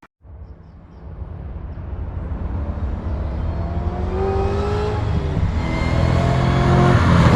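Car engine accelerating and getting steadily louder, its pitch climbing and dropping back a couple of times as it shifts up.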